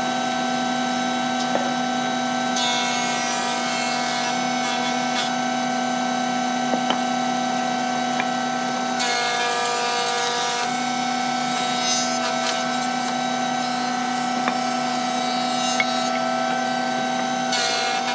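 Marunaka thickness planer running with a steady hum as a hardwood board is fed through, the cutter head planing the wood. The cutting noise comes in about two and a half seconds in and eases off around ten seconds.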